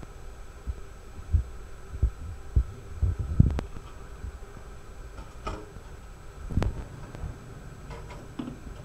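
Dull low thumps, roughly one every half second to a second, with a couple of sharper knocks, over a steady hum of room noise.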